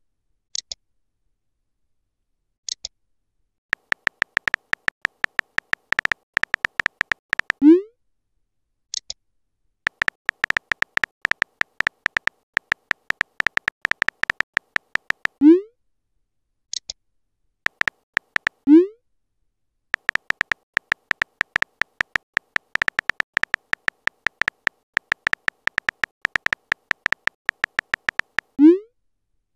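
Electronic key-tap clicks from a texting-story app as messages are typed out letter by letter, in fast bursts. Each burst ends in a short rising pop as the message is sent, four times, with a few short high chirps between the bursts.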